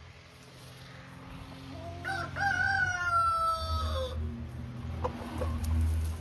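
A rooster crowing once: a drawn-out call of about two seconds that eases down in pitch at its end. A few short clucks from the flock follow, with a low rumble near the end.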